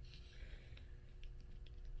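Light fingernail tapping and scratching on old book covers: a scatter of small, faint ticks about half a dozen times over a low handling rumble.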